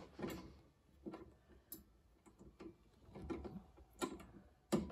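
Faint, irregular clicks and taps of small metal hardware on an electric tiller's handle frame as a nut is screwed on by hand, the sharpest tap near the end.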